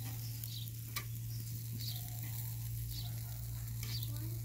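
Pork strips sizzling on a charcoal grill, with a sharp click of metal tongs about a second in and a few faint crackles, over a steady low hum.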